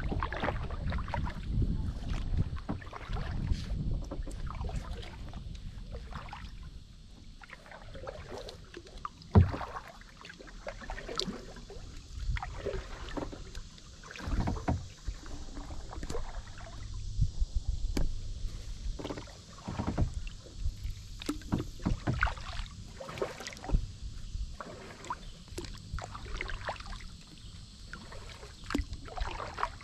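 Kayak paddling: the paddle blades dip and splash in the water at uneven intervals of a second or two, with water dripping and lapping along the hull.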